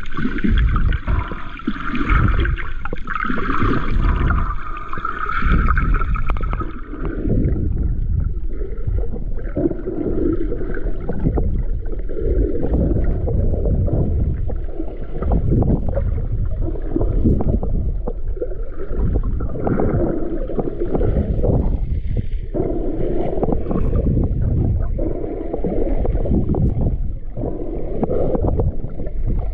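Muffled underwater sound picked up by a camera held below the surface: low churning and sloshing of water that swells and ebbs every second or two. A higher hiss over it stops about seven seconds in.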